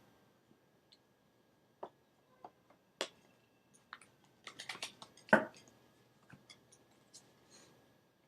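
Tarot cards being handled: scattered light clicks and taps of card stock, with a quick run of them about four and a half seconds in and the loudest tap just after.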